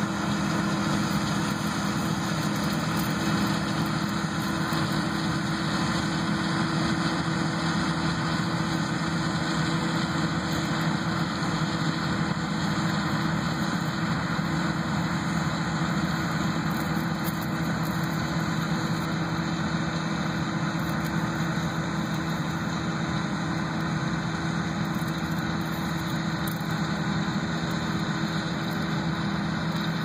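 John Deere combine running steadily while harvesting soybeans: an even engine drone with a constant low hum and no change in pitch.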